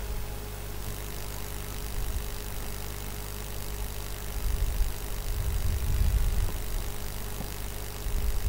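Steady electrical mains hum from a live microphone and sound system, with a low rumble underneath that swells about four to six seconds in.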